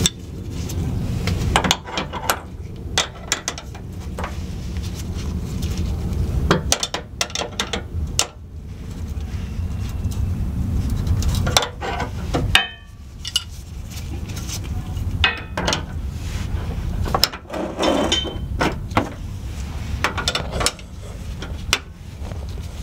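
Metal wrenches clinking and scraping on the fuel line nuts and filter as the lines on a new fuel filter are tightened: irregular sharp clicks and clanks over a steady low hum.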